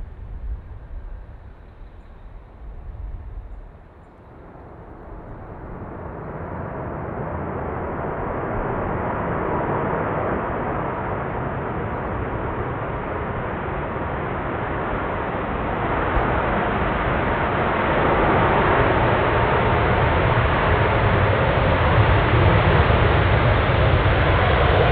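Jet engine noise from an Airbus A380-861's four Engine Alliance GP7200 turbofans, swelling steadily louder from a few seconds in and stepping up again about two-thirds of the way through.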